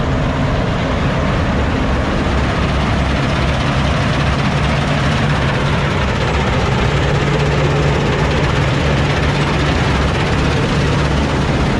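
Heavy farm machine's diesel engine running steadily, a loud constant drone with mechanical noise.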